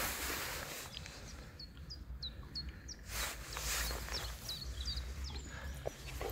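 A small bird chirping repeatedly, short high notes that drop in pitch, in two runs of four or five chirps. Bursts of rustling noise come at the start and about three seconds in, over a steady low rumble.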